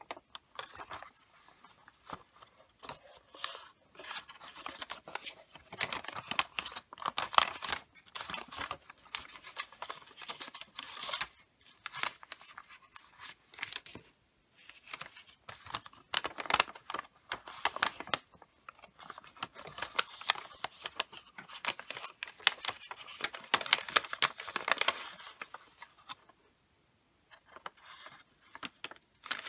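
Sheet of wrapping paper being folded and creased by hand, rustling and crinkling in irregular bursts as fingers run along the folds. There is a short pause near the end.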